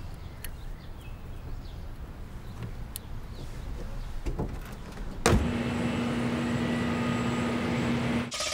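Low rumble with a few faint clicks, then about five seconds in a sudden start of a louder, steady engine sound: a held hum with a high whine over it, cut off near the end.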